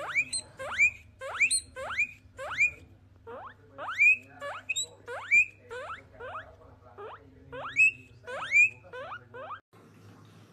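Guinea pig wheeking: a long run of short squeals that each sweep sharply upward in pitch, about two a second, stopping shortly before the end.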